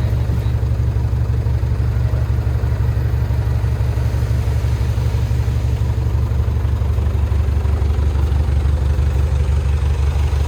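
Heavy diesel engine of an earthmoving machine running steadily at low revs, a loud low-pitched rumble with an even throb.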